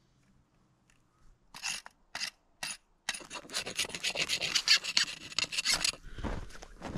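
A hatchet striking wood: three separate chops, then a fast run of rasping, scraping strokes as the blade works the wood. Near the end come footsteps in snow.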